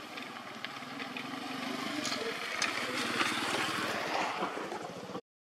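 A small engine running with an even pulse, growing louder in the middle, then the sound cuts out abruptly near the end.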